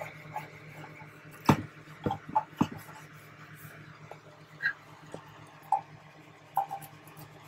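A wooden stick scraping and tapping inside an empty Harley Sportster fuel tank as it is worked around through the pump opening to clean out corrosion: a handful of short, irregular knocks and scrapes, the loudest about a second and a half in. A low steady hum runs underneath.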